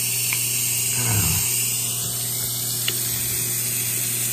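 Bathroom faucet running steadily, its stream hissing into the sink while he drinks from it, with a short low throat sound about a second in.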